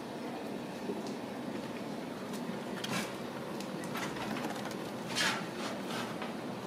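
Ragdoll kittens playing, with a few short scratching and scuffling noises, the loudest about five seconds in, over a steady low room hum.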